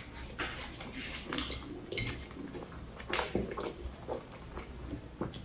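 Close-miked mouth sounds of eating a soft cream-filled puff pastry: wet chewing and lip-smacking, with irregular sharp clicks as the pastry is handled, one louder a little after three seconds in.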